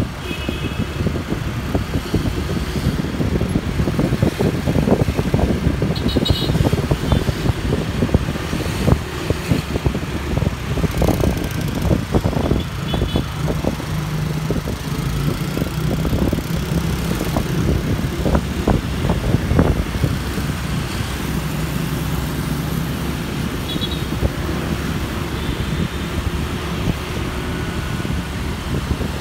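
Steady traffic noise from riding among motor scooters and cars on a city street: engines running, with rushing air over the microphone. A few brief high beeps sound in the middle.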